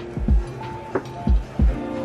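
Background music: held notes and short plucked notes over a deep kick drum that hits three times.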